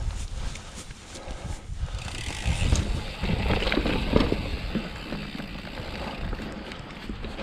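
Mountain bike climbing a rocky, rooty trail: tyres rolling and knocking over rock and roots, with rattling clicks from the bike. It is busiest and loudest from about two to five seconds in.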